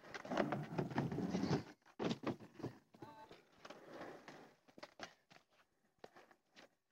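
Skateboard wheels rolling over an old tennis court, loudest in the first couple of seconds, with scattered clicks and knocks from the boards.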